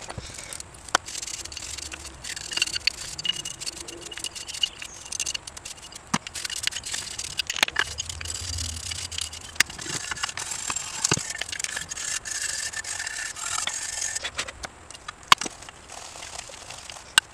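Small metal parts of a drum brake being handled on a workbench: scattered sharp clicks and clinks, with scraping as a tool and a brake shoe work against the steel backing plate.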